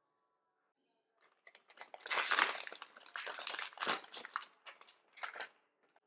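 A small plastic pack of laver seaweed being torn open and crinkled in the hands, a dense crackling for a couple of seconds followed by a few separate crinkles.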